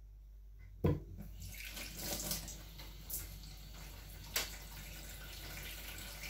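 Running water, starting with a sharp knock about a second in and stopping near the end.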